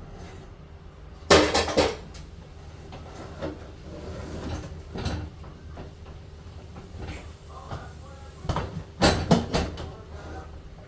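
Kitchen clatter: two short bursts of sharp knocks and rattles from dishes, pots or utensils being handled, about a second in and again near the end, with a few lighter knocks between.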